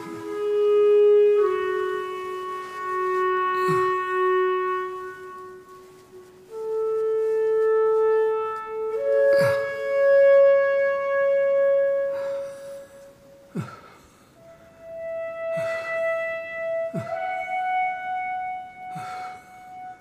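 Slow background music: a melody of long held notes on a wind instrument, each note sustained for one to three seconds.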